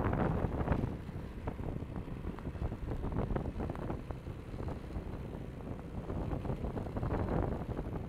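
Wind buffeting the microphone: an uneven, gusty low rumble, a little stronger in the first second.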